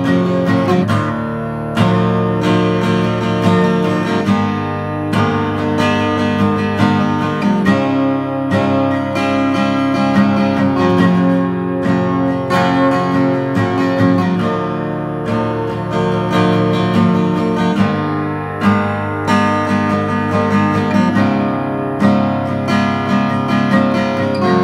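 Acoustic guitar played in chords, with strokes every second or two and the notes ringing on between them. Its strings have just been cleaned with Fastfret string cleaner, and they sound clearer and more resonant.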